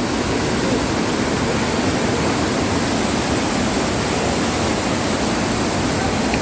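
Waterfall and its swollen stream in heavy flood, water rushing steadily with no break.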